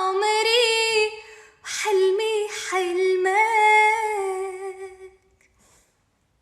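A woman singing unaccompanied, drawing out long wordless held notes with small ornamental turns, with a brief breath about a second and a half in; the singing ends about five seconds in.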